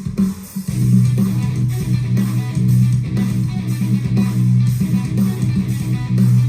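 Software-programmed djent-style metal riff on a low-tuned electric guitar: choppy low chugs that settle into a long, held low note about a second in.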